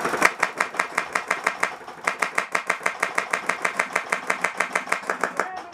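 Airsoft rifle firing rapidly, about ten shots a second, in two long bursts with a brief break about two seconds in.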